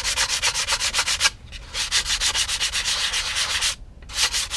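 Quick back-and-forth hand sanding with 120-grit paper on a sanding block over filler on a balsa-and-plastic model aircraft joint, about seven or eight strokes a second. There are three runs of strokes with two short pauses. The filler is still slightly wet.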